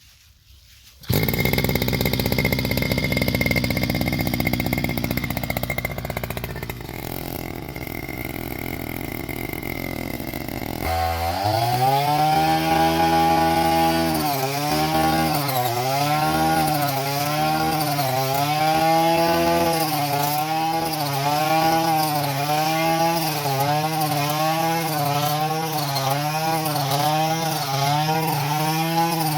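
Small engine of a mini rice harvester starting up abruptly about a second in and running loudly with a noisy, rough sound. Around the middle it changes to a clearly pitched hum whose pitch rises and dips about once a second, as the engine speed swings with the load.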